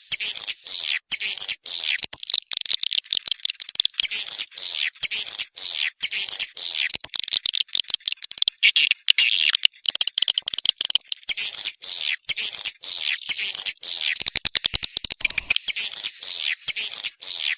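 Swiftlet lure-call recording: edible-nest swiftlets' high chirping twitters in quick repeated bursts, with a fast run of clicks about 14 seconds in.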